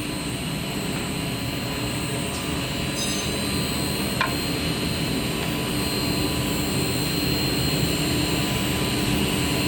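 Blue Elephant 45SG edge banding machine running: a steady machine hum and whir, with a couple of faint clicks about three and four seconds in.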